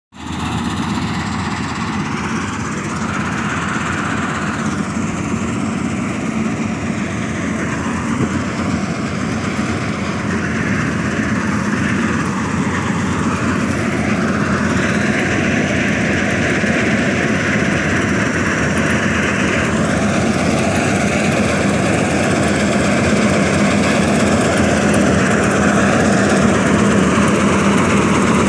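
2010-model Swaraj 8100 combine harvester, fitted with a straw management system (SMS), running steadily while it cuts ripe paddy: a continuous mechanical din from its engine and threshing gear that grows slowly louder as the machine comes closer.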